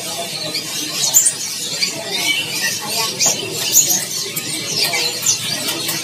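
Many caged songbirds chirping and calling over one another: a dense mix of short, high chirps and whistles, several a second.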